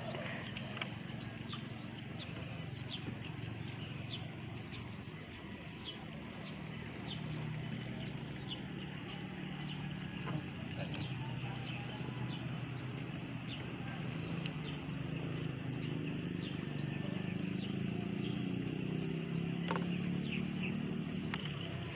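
Open-air ambience: scattered short, rising bird chirps over a steady low rumble and a constant high hiss.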